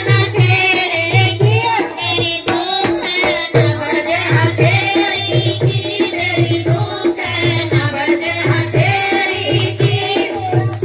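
A woman sings a Hindi devotional bhajan to Shiva through a microphone, accompanied by a dholak drum playing a steady beat.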